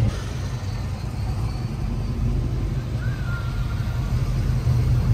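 Steady low vehicle rumble, a motor running or road noise, with a faint brief whine about three seconds in.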